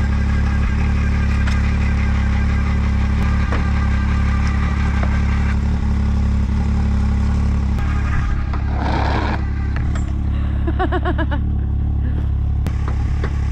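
An engine running steadily at idle, with an unchanging hum and no revs. Brief voices can be heard near the end.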